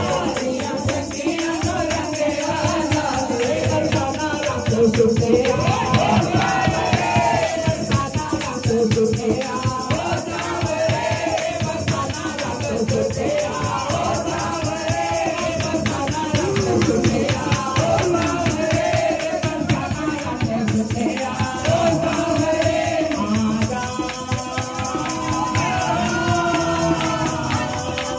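Women singing a Hindu devotional bhajan into a microphone, with jingling hand percussion keeping a steady beat underneath.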